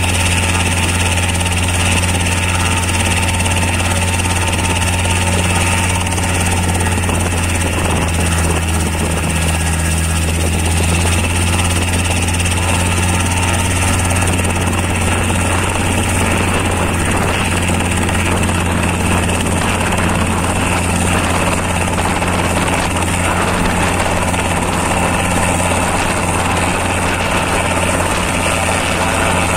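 Robinson R22 helicopter running steadily on the ground with its rotors turning, a loud even hum from its piston engine and rotors, lifting off into a low hover near the end.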